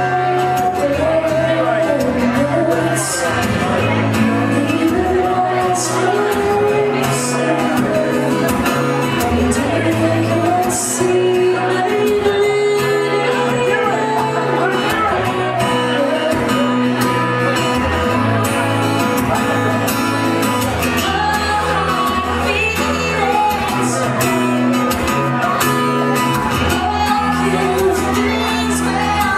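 Live music: a woman singing a melody while playing steel-string acoustic guitar.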